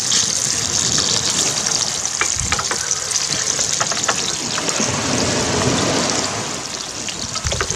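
Chunks of mackerel sizzling steadily in oil in a non-stick frying pan, with a few light clicks of a spatula and knife against the pan as the pieces are turned.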